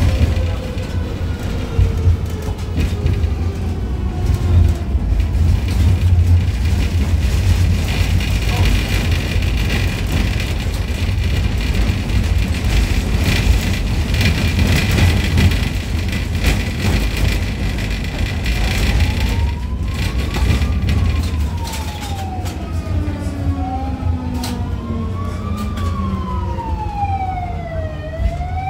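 Cabin sound of a MUV tram running on its rails: a steady low rumble with the clatter of the wheels over the track, and a falling whine in the first few seconds. From about two-thirds of the way through, an emergency vehicle's siren wails, rising and falling in pitch over and over.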